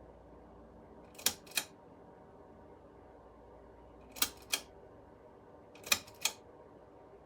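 Small plastic push switch clicked three times, each time a quick double click as it is pressed and released.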